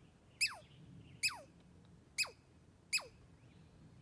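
Squirrel calling: four short whistled calls, each sliding quickly down in pitch, about one a second.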